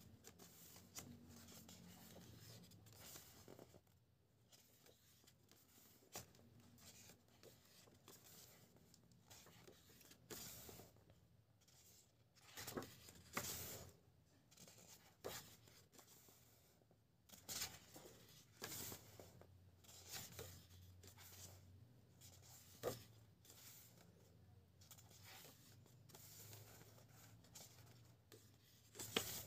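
Faint rustling and sliding of art-book pages being turned by hand, with short louder swishes every few seconds at uneven intervals as pages flip over.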